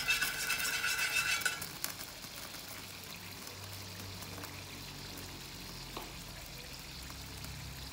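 Cooking oil poured from a plastic bottle into an empty nonstick frying pan on a lit gas burner, against a steady low hiss. A louder hiss with a whistling tone stops sharply about a second and a half in, and there is a single click near the end.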